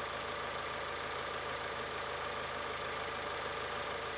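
Land Rover Discovery Sport's 2-litre four-cylinder diesel engine idling steadily with a fast even pulse, running after replacement of the number four injector and its seal, without the chuffing of a leaking injector seal.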